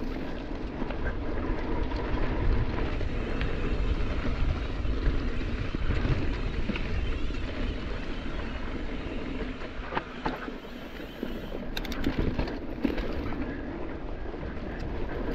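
Mountain bike riding fast down a dirt forest singletrack: a steady rumble of wind and tyres on the trail, with a few sharp clicks and rattles from the bike about ten and twelve seconds in.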